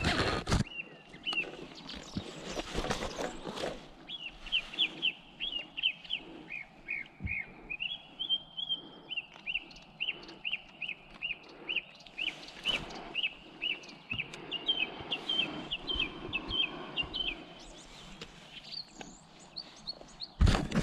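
A small songbird singing a long run of short, high chirping notes, about two or three a second, with brief pauses. A loud knock sounds right at the start and another just before the end, with a short rustle of handling about two seconds in.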